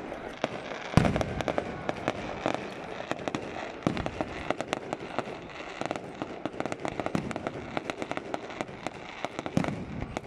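Aerial fireworks bursting overhead: a dense, continuous crackle of small pops with a few heavier booms, the loudest about a second in.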